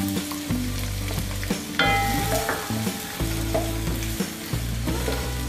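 Chopped onion sizzling in hot cooking oil in a pan, stirred now and then with a spoon.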